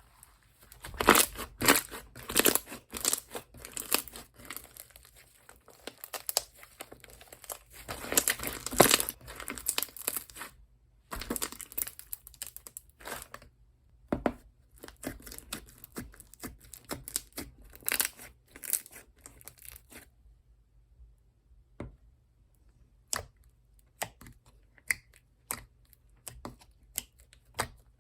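Slime being squished, stretched and poked by hand, with dense crackling and popping that thins out to scattered single clicks about twenty seconds in.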